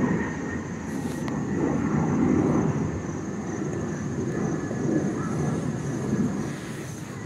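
Wind buffeting the phone's microphone on an open roof: an uneven low rumble that swells and fades.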